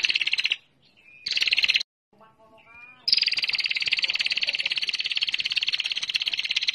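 Female prenjak (prinia) call, a rapid buzzing ticking trill used as a lure call: two short bursts near the start and about a second in, then one long unbroken trill from about three seconds in.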